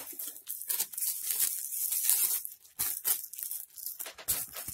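Clear plastic bag crinkling and tearing in irregular bursts as it is pulled off a knife.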